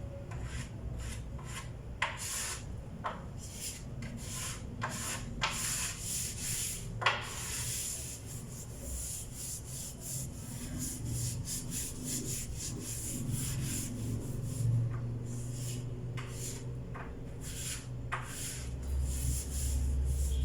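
Wooden table surface being sanded by hand: repeated rubbing strokes of abrasive on wood, uneven in pace, quicker and closer together in the middle.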